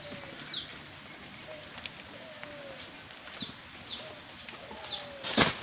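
Birds calling: short, high, falling chirps repeated every half second to a second, with faint low falling notes beneath. A single heavy thump near the end is the loudest sound.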